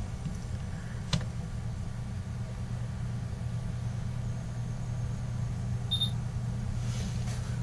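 Steady low background hum, with one sharp click about a second in and a brief high beep about six seconds in, and a few faint clicks near the end.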